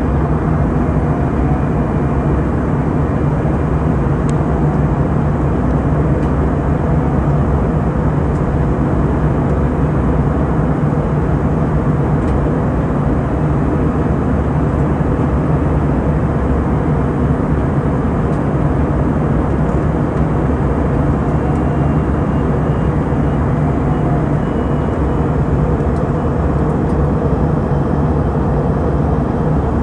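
Steady roar of an airliner's engines and rushing air heard from inside the passenger cabin during the descent to land.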